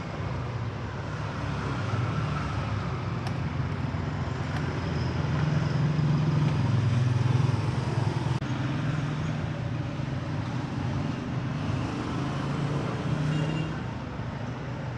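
Steady low rumble of road traffic, swelling and easing, with a few faint clicks.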